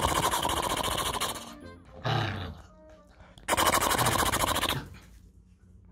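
Machine-gun sound effect firing in two rapid bursts, the first about two seconds long and the second about a second and a half, with a short sound between them about two seconds in.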